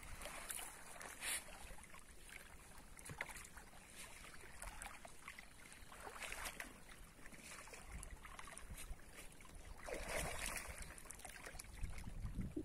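Faint splashing and sloshing of shallow water as a fish is lowered into a mesh keep net and a man wades at the water's edge, with a few slightly louder splashes spaced several seconds apart.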